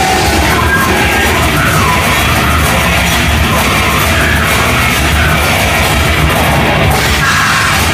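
Loud heavy rock music with yelled vocals over a dense, steady band sound.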